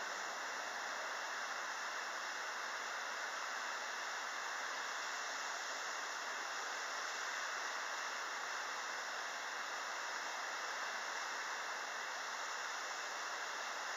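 A steady, even hiss with no distinct sounds standing out.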